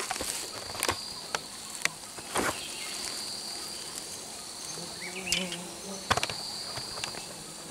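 Forest insects keep up a steady high whine. A few sharp snaps and rustles of twigs and dry bamboo litter come through it, the loudest about two and a half seconds in and again after six seconds.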